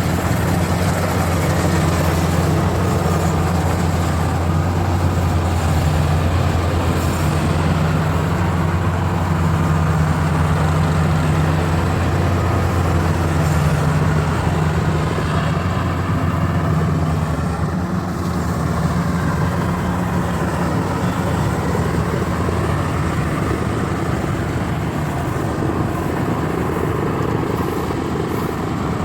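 Maxxi Bimo 102 rice combine harvester running steadily as it works, a constant low engine drone that eases a little near the end.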